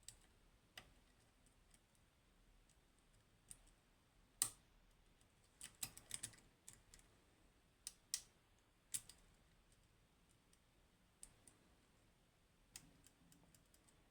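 Faint, sparse clicks of a lock pick working the pins of a Goal Z seven-pin pin-tumbler lock with spool drivers. There are single clicks every second or two, a quick cluster of clicks about six seconds in, and the loudest single click about four and a half seconds in.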